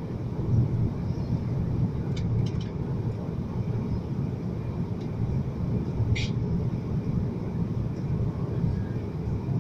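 Cabin noise inside an Airbus A330-300 descending to land: a steady low rumble of its Rolls-Royce Trent 700 engines and the airflow. A few faint short high sounds come about two seconds in and again about six seconds in.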